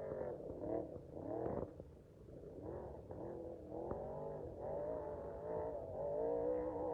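Off-road race truck engines revving, the pitch rising and falling again and again as the throttle opens and closes, with a short drop in loudness about two seconds in.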